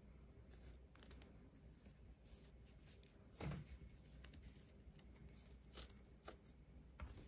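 Faint crinkling and rustling of paper yarn as it is worked with a crochet hook, in scattered small ticks, with one louder brief rustle about halfway through.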